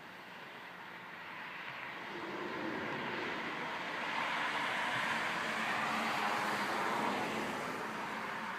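Rushing noise of a passing vehicle, growing louder over a few seconds and then fading away.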